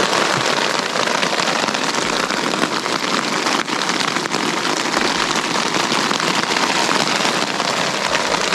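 Hail pelting down in a storm, a loud, steady, dense patter of countless small hits.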